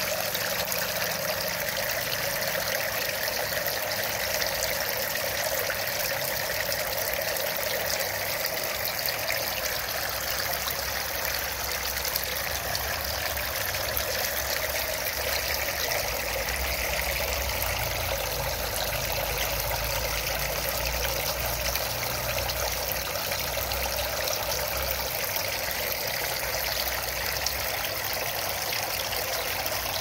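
Water falling in thin sheets from the stacked trays of a tiered cascade fountain, splashing steadily into a round basin below.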